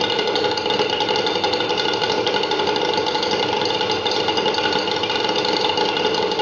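Roberts rotary plasma engine prototype running: a steady mechanical rattle with several constant whining tones over it.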